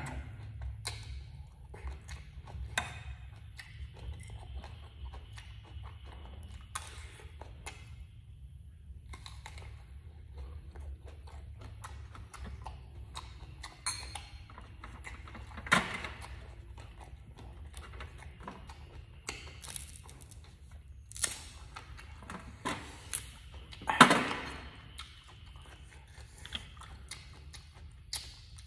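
Person eating up close: chewing and biting, with scattered sharp clicks and knocks, the loudest about 24 seconds in, over a steady low hum.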